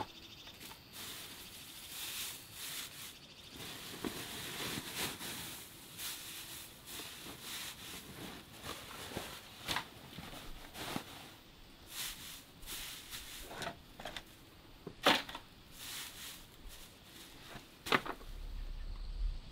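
Split firewood pieces knocking and clattering as they are set onto a woodpile, a scatter of light wooden clicks with a few sharper knocks, the loudest two in the second half.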